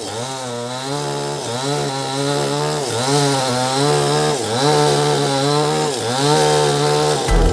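Motorised sawmill saw running as it cuts mahogany timber, with a hiss of sawing over the motor; its pitch dips briefly and recovers about every one and a half seconds as the cut loads it. A deep low rumble comes in near the end.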